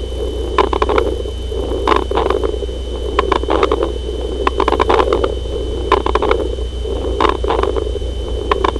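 Chest sounds heard through a stethoscope: clusters of sharp crackling clicks recur about every 1.3 seconds over a continuous deep rumble, with a steady high whine running underneath.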